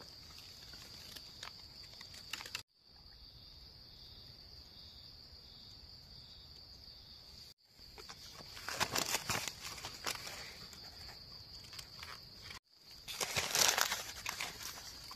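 Forest insects keep up a steady high drone. Over it, dry leaf litter crackles and rustles as hands dig mushrooms out of it, most loudly around nine seconds in and again near the end. The sound cuts off abruptly a few times.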